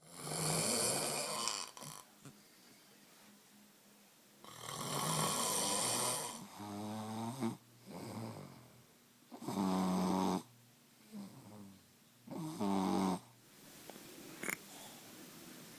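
Snoring: a run of loud breaths a few seconds apart. The first ones are noisy and airy; the later ones carry a low buzzing tone. A short click comes near the end.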